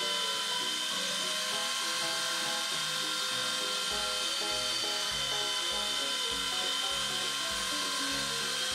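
Background music with a bass beat that comes in about four seconds in, over the steady high whine of a Dremel rotary tool working as the spindle of a mini CNC 2417, its 3.2 mm bit surfacing a wooden block.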